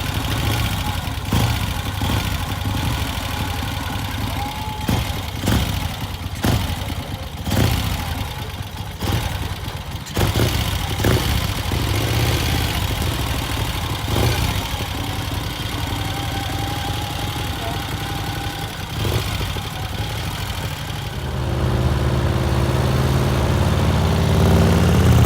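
Vincent Rapide V-twin motorcycle engine idling steadily, with scattered knocks and clicks over it. About four seconds before the end the engine is revved and its pitch rises, louder.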